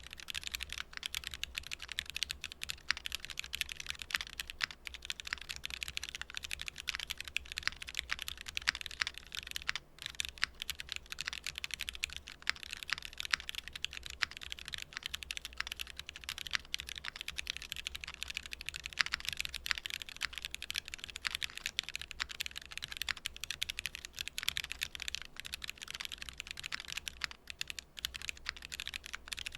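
Continuous fast typing on a gasket-mounted mechanical keyboard with an aluminium plate and C3 Equalz Tangerine 67 g linear switches, keys bottoming out in a steady stream of clacks with a brief pause about ten seconds in.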